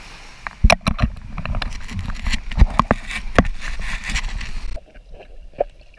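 Water splashing and knocking against a waterproof action camera's housing as it is carried low through shallow surf: a run of sharp knocks and sloshing. Near the end the sound turns suddenly dull and quiet as the camera goes under water.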